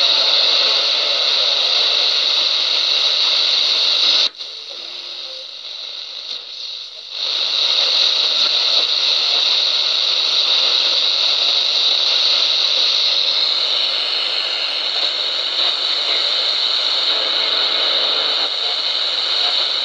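Shortwave radio receiver, modified to cover up to 29 MHz, giving loud steady static hiss through its small loudspeaker while it is tuned. The hiss drops away abruptly about four seconds in and returns about three seconds later.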